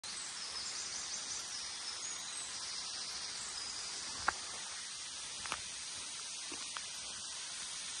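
Steady high-pitched hiss of forest ambience, with three short sharp clicks about halfway in, the first the loudest.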